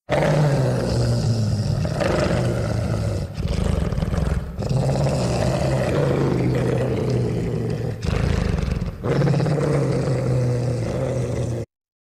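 A monster roar sound effect: one long, low-pitched roar that starts abruptly, breaks briefly a few times, and cuts off suddenly near the end.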